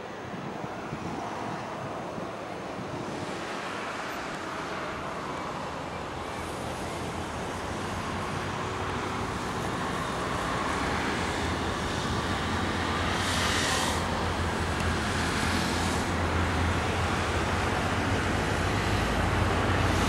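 Road traffic on a multi-lane avenue: cars and motorcycles passing in a steady rush that grows gradually louder, with a low engine drone strongest in the last several seconds.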